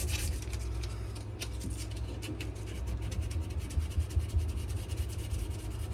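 Sandpaper being rubbed by hand over a wenge and maple knife handle: a dry, scratchy rubbing in a run of short back-and-forth strokes.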